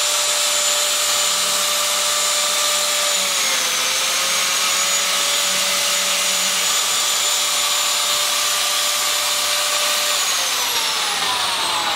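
Biscuit jointer's electric motor running with a steady high whine. About three and a half seconds in the pitch dips briefly as the blade plunges into the wooden board to cut a slot, and near the end the motor is switched off and winds down, its pitch falling.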